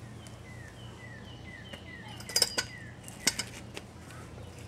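A few sharp metallic clinks, a cluster about two and a half seconds in and one more about a second later, as metal parts are handled. Behind them a short, high falling chirp repeats about three times a second for the first half or so.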